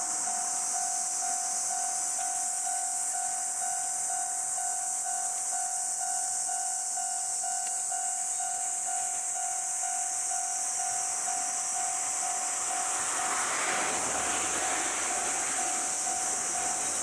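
Japanese railroad-crossing warning bell ringing its steady, evenly repeated kan-kan tone over a constant high hiss. About three-quarters of the way through, the rumble of an approaching Ohmi Railway train rises beneath the bell.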